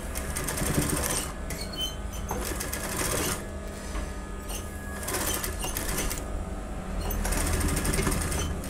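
Sewing machine with a single-sided zipper foot stitching a zip tape onto a blouse panel, run in about four short bursts of fast, even stitching with a steady low motor hum in the pauses.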